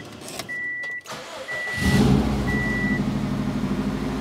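2007 Subaru WRX STI's turbocharged flat-four started about two seconds in, catching at once and settling into a steady idle, run to circulate freshly changed engine oil. A high warning chime beeps about once a second before it and stops about a second after the start.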